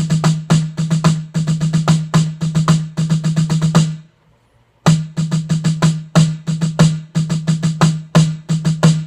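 Snare drum played in quick rhythmic strokes as a solo passage, in two runs of about four seconds each with a short stop between them, a bit over four seconds in.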